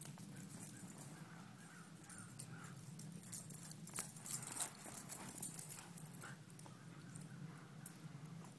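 A whippet's paws striking and scuffing a leaf-strewn lawn as it runs, a scatter of soft thuds and rustles over a steady low hum.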